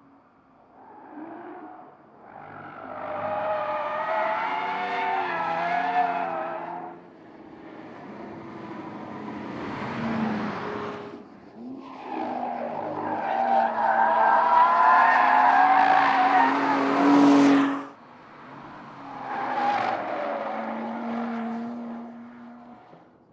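Porsche Panamera 4S E-Hybrid, twin-turbo V6 plug-in hybrid, driven hard through corners: its engine runs under load while the tyres squeal. It comes in three swelling and fading passes, the loudest cutting off suddenly about two-thirds of the way through.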